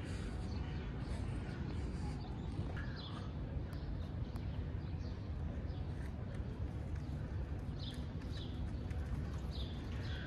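Outdoor ambience: a steady low rumble, with a few short bird chirps now and then and faint clicks of footsteps on hard paving.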